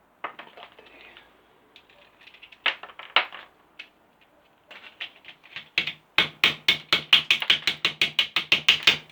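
Hammer tapping on a plastic circuit breaker casing to break it open: a few scattered knocks and clicks at first, then from about six seconds a fast, even run of sharp taps, about five a second, with a low steady hum underneath.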